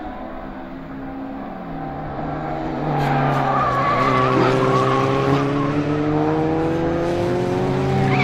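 Race car engines of a pack of historic saloon cars accelerating out of a corner, several engine notes climbing steadily in pitch. The sound grows much louder about three seconds in as the main pack arrives, with tyres squealing.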